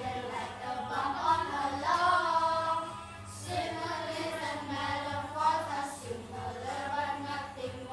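A small group of children singing a song together, holding each note for a moment before moving to the next.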